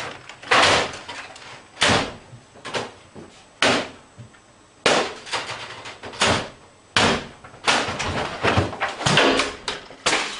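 A dozen or so loud bangs and crashes at irregular intervals, as office furniture and computer equipment are struck and thrown about in a rage, with the blows coming closer together near the end.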